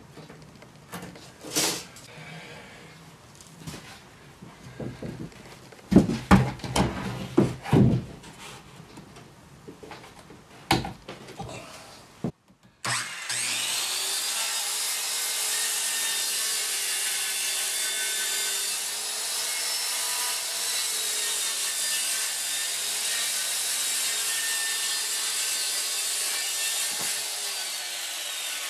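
Corded circular saw cutting a long, steady pass through a plywood sheet, running with a constant whine and a hiss of cutting. Its pitch starts to drop near the end. Before the saw starts, about halfway in, there is a scatter of knocks and taps as the plywood and tools are handled.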